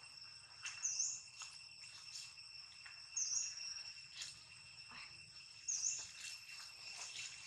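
Steady, high-pitched insect chirring holding two pitches, with a short high chirp repeating about every two and a half seconds, three times, and faint scattered clicks and rustles.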